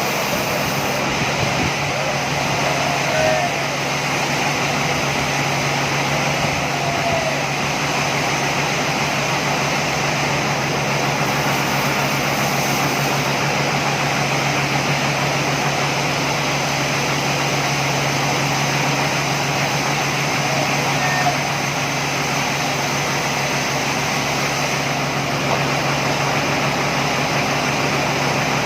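Sawmill machinery running: a steady engine drone with a constant low hum.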